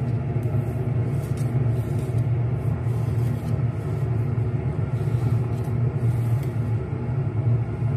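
A steady low mechanical hum fills the background, with faint, brief scrapes of a ceramic plate being turned and slid on the counter.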